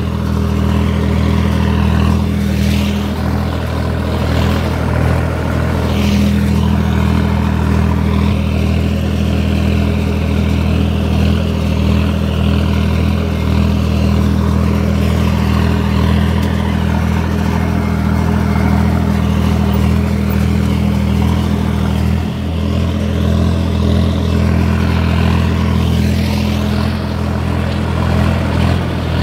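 Tractor diesel engine running steadily under load while pulling a disc harrow through the field, heard close up from the driver's seat. The engine note dips briefly about three-quarters of the way through.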